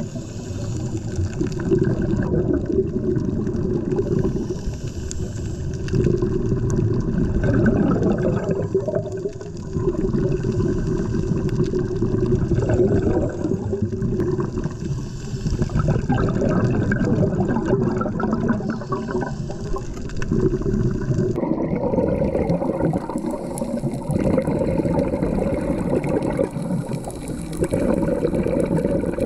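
Underwater recording of a scuba dive: bubbling and rushing water from a diver's regulator breathing, swelling and fading every few seconds. The sound changes character abruptly about two-thirds of the way through.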